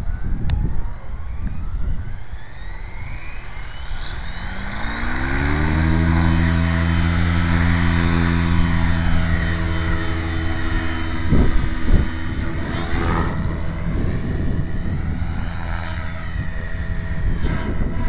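Align T-Rex 600E electric RC helicopter spooling up: the motor whine and the main-rotor beat rise in pitch over about five seconds, then hold steady as it flies. Wind buffets the microphone throughout.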